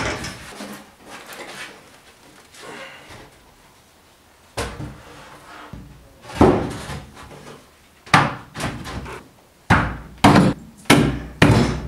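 Wood-on-wood knocks and thuds as a heavy wooden panel is worked into a wooden cabinet opening and settled onto its bracing: scattered knocks, the loudest about six seconds in, then five in quick succession near the end.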